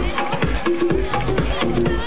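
Electronic dance music from a DJ set, played loud over a club sound system, with a steady kick drum about twice a second, a short repeating synth note and crisp percussion hits. The sound is dull, with the top end missing, as from a camera microphone.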